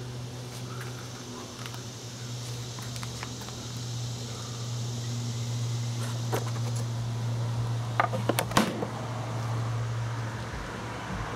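A steady low mechanical hum with a thin high hiss behind it, and a quick cluster of sharp clicks and taps about eight seconds in; the hum stops near the end.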